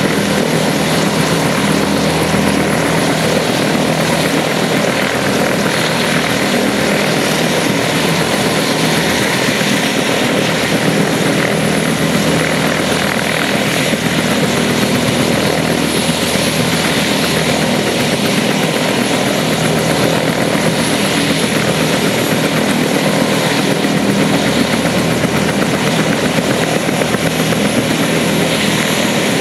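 Bell UH-1H Iroquois (Huey) helicopter running steadily on the ground. Its Lycoming T53 turboshaft and two-bladed main rotor keep turning at a constant speed.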